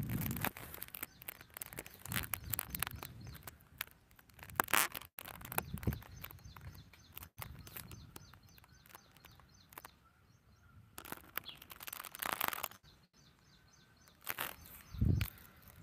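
Outdoor rural ambience with faint small birds chirping now and then, over scattered rustles and knocks close to the microphone.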